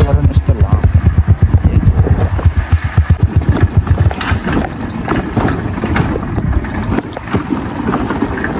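Motor scooter's engine running at low road speed with a rapid, even pulse; from about four seconds in, the pulse gives way to a rougher rumble with scattered clicks and rattles as the tyres roll over a stony dirt track.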